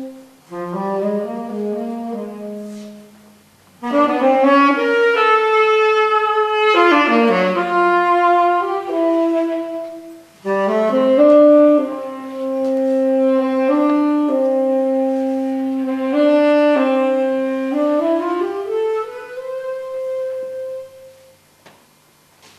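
Solo saxophone playing a slow melody in three phrases with short breath pauses between them; the last phrase climbs into a long held note that fades out near the end.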